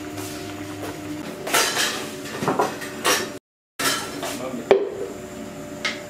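Pots, dishes and utensils clinking and knocking in a kitchen, several separate strikes, the sharpest about three-quarters of the way through. The sound cuts out for a moment in the middle.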